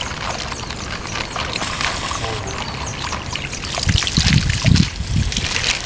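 Water and young fish pouring out of a plastic bag into a shallow pond, trickling and splashing, growing louder about four seconds in as the bag empties.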